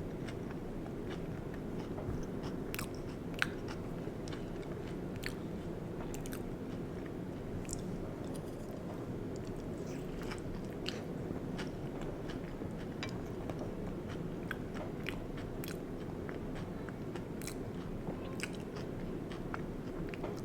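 Close-miked chewing and biting of stuffed sweet potato: wet mouth sounds with many small scattered clicks and the odd crunch, over a steady low hum.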